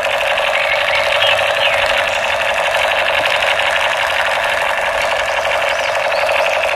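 Battery-operated toy submachine gun running its firing sound effect: a steady, rapid machine-gun rattle that keeps going without a break.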